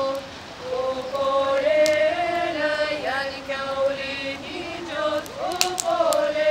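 A group of women singing a Lithuanian folk song unaccompanied, holding long chanted notes in two parts, one above the other. There is a short pause for breath about half a second in.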